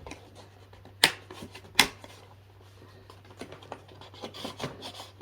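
Cardboard advent-calendar packaging being opened and handled: two sharp clicks about a second and just under two seconds in, then light scratching and tapping.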